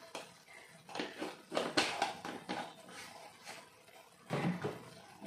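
A scattered run of light clicks and knocks from kitchen utensils and spice containers being handled, then a duller knock near the end.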